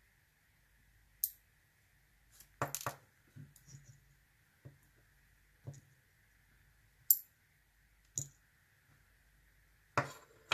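Small metal lock parts, tiny padlock pins and tweezers, clicking and tapping as they are handled: a scattered series of about eight short, sharp clicks.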